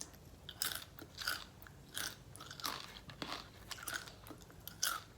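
Close-miked chewing of crunchy food, steady crisp crunches about every half second.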